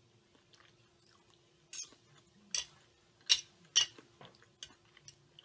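A person chewing a mouthful of food close to the microphone, with several sharp wet smacks, the loudest about three and four seconds in, over a faint steady hum.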